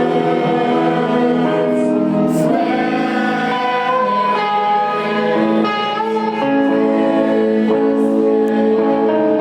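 Live band music: guitars playing with singing.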